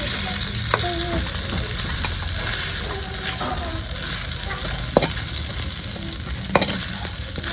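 Potatoes sizzling steadily as they fry in hot oil in a pan, stirred with a spatula that knocks sharply against the pan twice in the second half.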